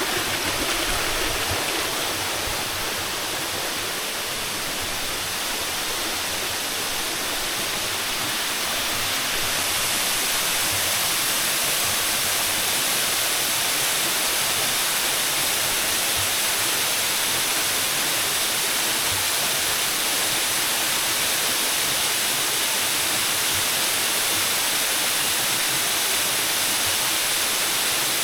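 Waterfall's steady rush of falling water, an even hiss with no breaks.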